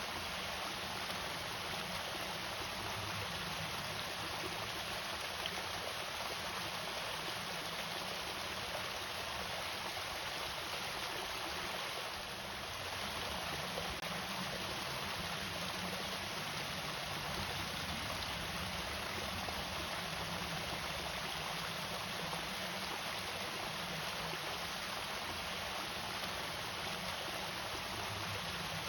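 Water spilling over a small irrigation waterfall, a steady, even rush of falling and running water.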